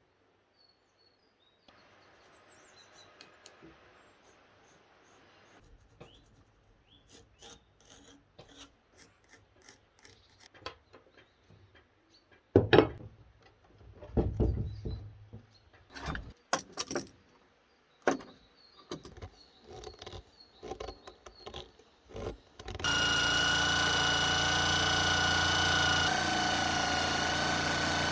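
Hand-tool work in a workshop: scattered knocks, scrapes and rubbing of tools on wood and metal, with the sharpest hits near the middle. About 23 s in, an electric power tool starts and runs steadily with a constant high whine.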